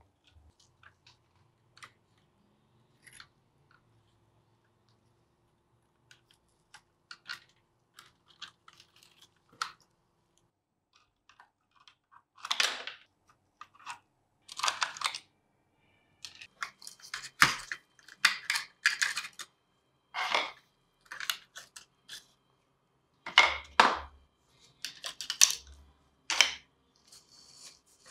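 Fine metal tweezers picking and scraping crusted rust and dirt off the underside of a diecast model truck: a series of short scrapes and clicks, sparse and faint in the first half, then louder and closer together in the second half.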